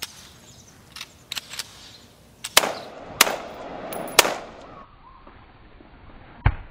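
Staged gunfire: a few light pops, then three loud gunshots with echo about two-thirds of a second apart. A short, deep thump comes near the end.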